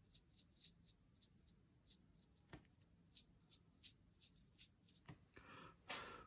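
Faint scratching of a pen nib on watercolour paper, a string of short quick strokes with a sharper click about two and a half seconds in. Near the end comes a louder, longer rustle as the hand slides across the sheet.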